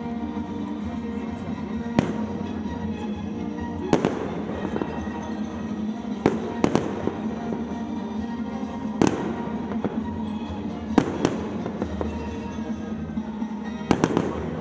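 Aerial fireworks bursting, a sharp bang every two seconds or so with some in quick pairs, each trailing off in a brief crackle and echo, over music playing throughout.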